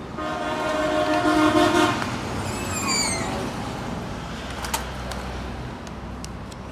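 Vacuum packing machine running a cycle, its pump giving a steady low hum. A loud horn-like tone sounds for about two seconds near the start, then a brief falling whistle follows.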